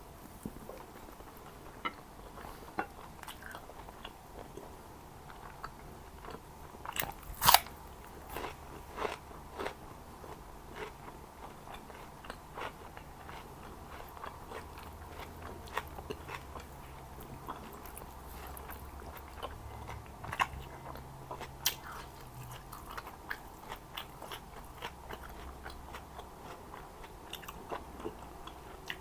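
Close-miked eating of Jordanian mansaf: steady chewing with many small wet clicks and crunches, and one loud crunching bite about seven seconds in.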